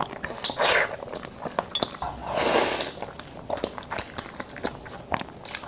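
Spoon clinking against a bowl of bibimbap in a run of short sharp clicks, with two longer swishing noises about half a second and two seconds in.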